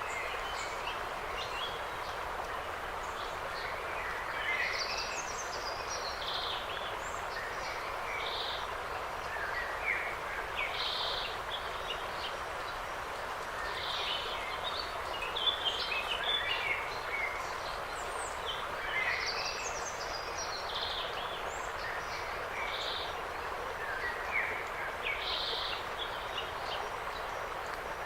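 Songbirds chirping and trilling in short scattered phrases over a steady, even background rush.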